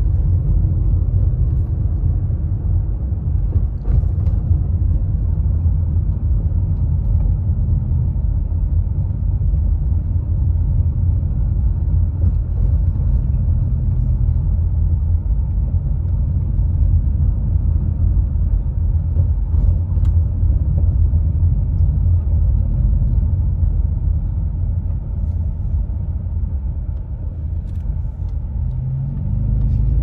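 Car driving, heard from inside the cabin: a steady low rumble of engine and road noise. Near the end the engine note rises as the car speeds up.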